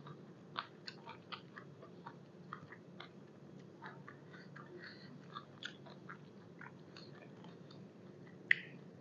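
Close-miked chewing of a mouthful of beef-tripe koi salad and fresh vegetables: a string of soft, wet clicks and small crunches, with one sharper click near the end.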